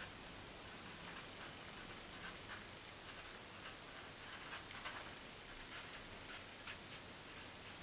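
Faint pen writing on paper: short scratchy strokes with small scattered ticks.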